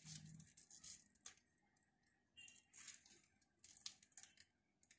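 Near silence, broken by a few faint, scattered clicks and soft rustles from a smartphone being handled and tapped.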